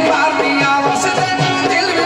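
Pothwari sher folk music: a quick, regular drum beat of about three to four strokes a second under steady held tones and a winding melody line.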